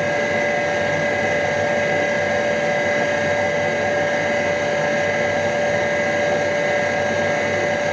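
Surface grinder running, its spindle motor and grinding wheel spinning with a steady whine and hum that does not change.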